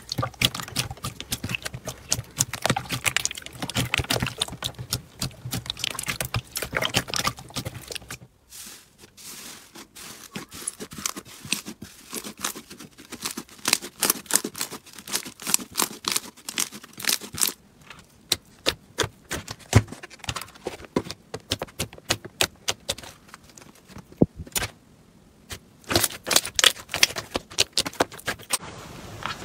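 Slime being squeezed, poked and stretched by hand, giving a dense, irregular run of small clicks, crackles and pops, with a short break after about eight seconds.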